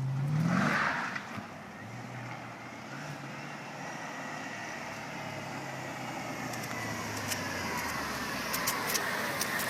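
Supercharged Mercedes M113 5.5 L AMG V8 in a CLS500 revving up sharply at the start, then running steadily at lower revs as the car drives on, with a faint high whine in the later seconds.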